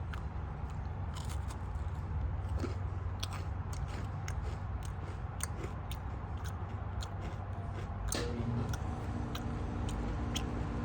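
A person chewing a Nature Valley Crunchy Peanut Butter granola bar: many short, irregular crunches.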